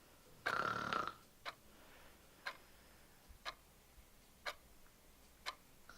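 Clock ticking steadily once a second, with one short snore from a sleeper about half a second in, the loudest sound here.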